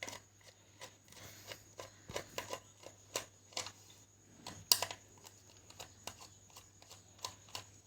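Irregular small clicks and taps of hands unscrewing the nuts of an electrical plug board box and opening it, with one sharper knock a little past halfway, over a faint steady hum.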